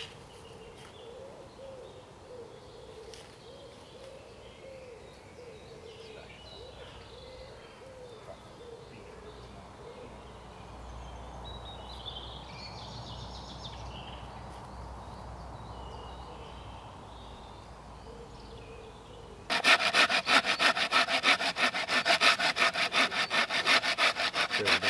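Hand saw cutting through a green wooden pole with quick, even back-and-forth strokes. It starts suddenly about three-quarters of the way in, after a long stretch of quiet background, and is the loudest thing heard.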